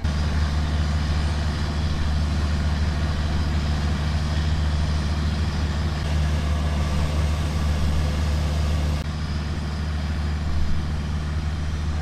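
Longtail boat engine running steadily with a loud, low drone, dropping slightly in level about nine seconds in.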